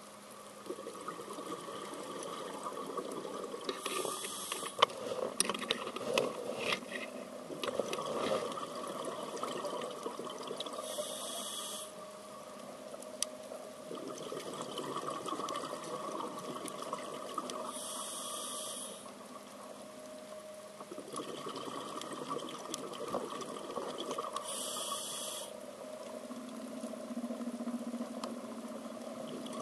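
Scuba diver breathing through a regulator underwater: four hissing breaths of about a second and a half, roughly every seven seconds, with bubbling and crackling between them.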